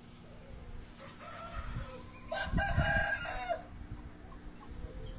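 A rooster crowing once, a drawn-out call that swells to its loudest a little over two seconds in, over some low thumps.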